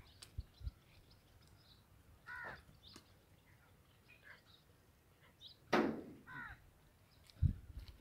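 A crow cawing three times: once about two seconds in, then twice in quick succession near six seconds, the first of the pair the loudest. Faint chirps of small birds and a few low thuds sit underneath.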